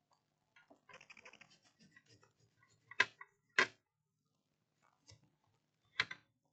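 Handling noises on a workbench: faint scratching and light clicks as small parts and tools are moved, with three sharper clicks, two about half a second apart near the middle and one near the end.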